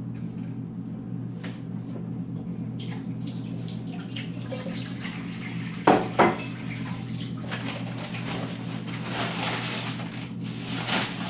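Pots and dishes being handled at a stove and counter: two sharp clanks about six seconds in, light scattered clatter, and a hissing rush near the end, over a steady low hum.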